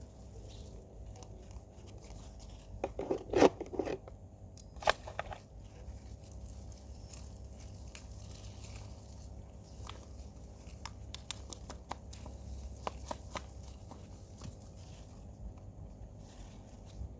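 Hands working among soil and potato plants: scattered small crunches, rustles and clicks, with a louder rustling crunch about three seconds in.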